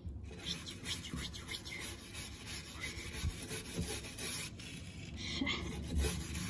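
Stiff-bristled brush scrubbing the dirt-caked corner of a window frame in rapid, irregular strokes.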